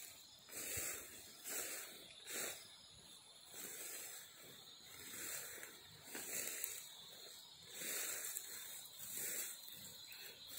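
A person moving through leafy ground cover, with hissing rustles and breathing that swell and fade about once a second.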